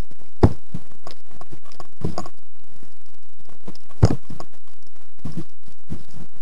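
Handling noise from a camera mounted on an airsoft gun being carried: irregular scuffs and rustling, with two sharp knocks, one about half a second in and one about four seconds in.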